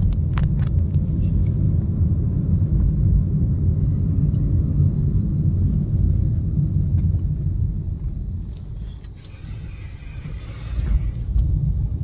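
Low road rumble inside a moving car's cabin, with a few light clicks in the first second. The rumble fades for a couple of seconds about two-thirds of the way through, then comes back up.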